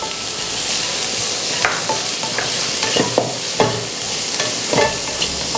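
Finely chopped carrot, cabbage and beans sizzling in hot vegetable oil in a pan as they are sautéed, with several scrapes of a spatula stirring them across the pan.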